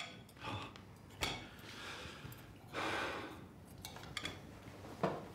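Quiet dinner-table sounds: a few light clicks of a fork on a plate and a long, soft sigh or exhale about three seconds in.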